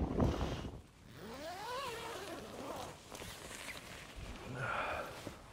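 Nylon tent door being unzipped from inside and a person shifting about in the tent, with a short voice-like sound that rises and then falls in pitch about a second and a half in.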